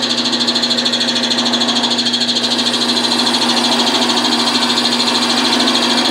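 Wood lathe running with a steady hum while a spindle gouge cuts beads into a spinning wooden bottle-stopper blank, throwing off shavings.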